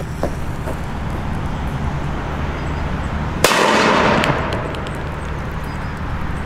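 A firecracker goes off with one sharp bang inside a metal frying pan about three and a half seconds in, followed by a short rush of noise that dies away within a second.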